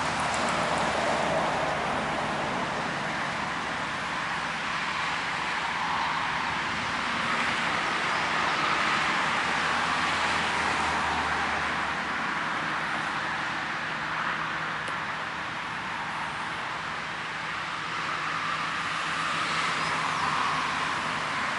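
Steady airport apron noise: a broad rushing sound that slowly swells and fades, over a faint low steady hum.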